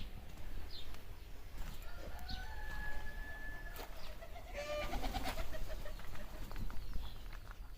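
Birds calling: several short high chirps, a held whistled note a few seconds in, and a longer, fuller call about halfway through, over a low steady rumble.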